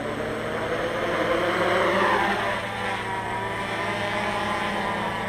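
Hexacopter's six NTM 2826 1000kv brushless motors with 9x4.7 Gemfan propellers spooling up for takeoff. A rising whine peaks about two seconds in as the craft lifts off, then eases into a steadier buzz as it hovers.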